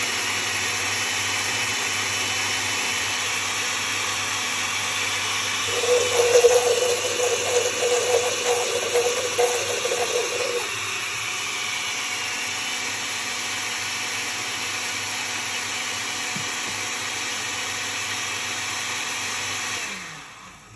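Oster countertop blender running steadily, its blades chopping garlic, ginger and oil into a thick paste in the glass jar. About six seconds in it turns louder and uneven for a few seconds with a hum, then settles back, and near the end the motor winds down and stops.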